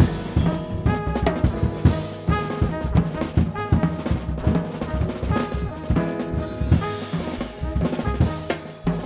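Live jazz group playing, led by a busy drum kit with frequent strokes throughout and a trumpet line sounding over it.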